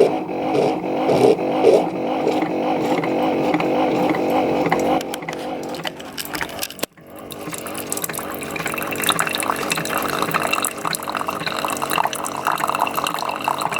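Keurig coffee maker running a cleaning brew cycle with baking-soda water: the pump hums steadily, then after a brief break about seven seconds in, hot water streams and spatters into the cup.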